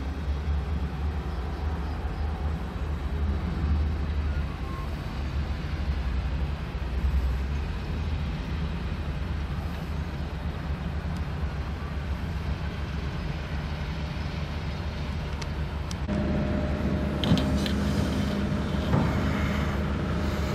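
Excavator diesel engine running steadily with a low hum. About three-quarters of the way through, the sound shifts: a higher steady hum joins in and a few short knocks follow.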